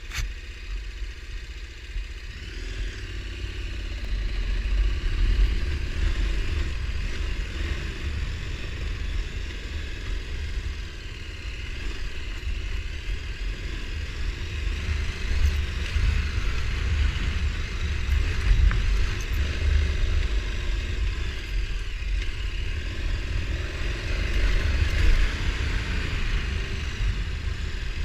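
ATV engine running under way on a dirt trail, its note rising and falling a little with the throttle, over a heavy, uneven low rumble.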